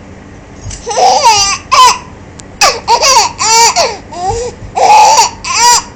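Baby laughing in a run of short, high-pitched squealing bursts with gasps between them.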